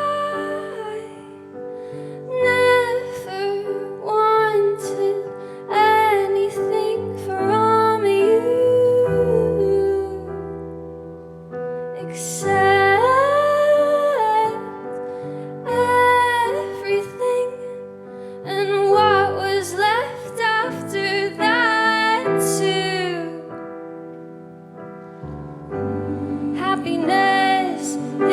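A woman singing a pop song over piano accompaniment, her voice gliding between held notes.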